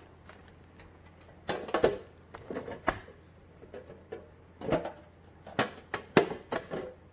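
Paper and cardboard packaging being handled: irregular rustles with light knocks and clicks in several short bursts.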